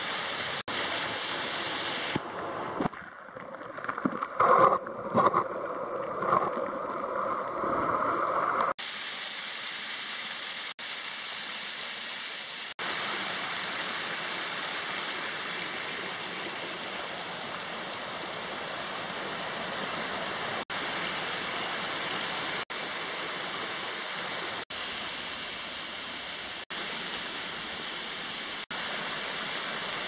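Rushing water of a forest waterfall and stream cascading over rocks, a steady rush. From about three to nine seconds in it turns uneven, with a few louder peaks, and there are brief dropouts every couple of seconds.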